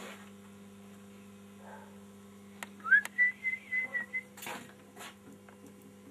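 A short whistle: a quick rising note that settles into a wavering held tone for about a second and a half, over a steady low electrical hum, with a few sharp knocks around it.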